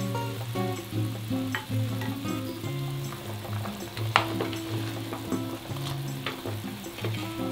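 Doenjang-jjigae broth at a rolling boil, bubbling and crackling with small pops, one sharper pop about four seconds in. Background music plays under it.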